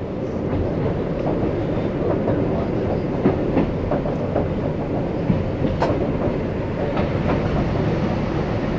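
Izuhakone Railway 1100 series (ex-Seibu 701 series) electric train running, heard from the cab: a steady rumble with irregular clacks from the wheels over the track, the sharpest one about six seconds in.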